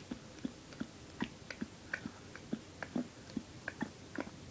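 Soft, wet clicking and gulping sounds made inside a closed mouth with puffed cheeks, repeated about three times a second in a fairly even rhythm. This is the repeated mouth action of the breath-smoke trick, done with the lips kept shut.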